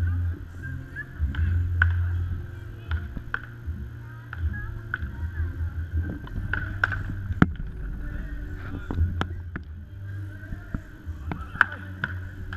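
Beach tennis paddles striking the ball in a rally: sharp, short pocks at irregular intervals of about a second, some in quick pairs. A steady low rumble sits under them.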